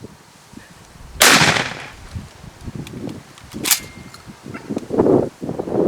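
Two shotgun shots at doves, about two and a half seconds apart, the first one louder with a short ring-out after it.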